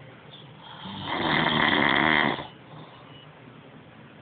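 A man snoring loudly: one long snore starting about a second in and lasting about a second and a half, with quieter breathing on either side of it.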